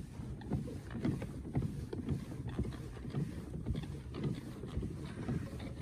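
A kayak on the water, with irregular crackles and light knocks as it noses into plant growth, over wind buffeting the microphone.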